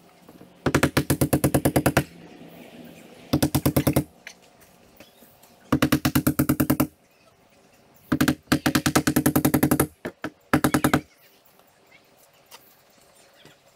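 Cordless impact driver hammering rapidly as it drives fasteners through a T1-11 wood siding panel into the wall. It comes in about five short bursts of a second or so each, one per fastener.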